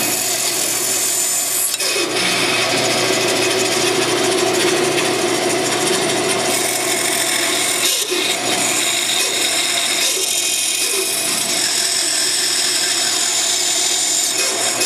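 Bandsaw running with its blade cutting through a 2x4 along a curve, a dust collector running alongside. The cutting sound dips briefly about two seconds and about eight seconds in.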